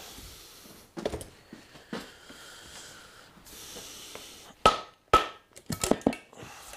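Scattered sharp metal knocks and clinks as a motorcycle engine's cylinder head and tools are handled. Two loud ones just past the middle ring briefly, and a quick cluster of clinks follows.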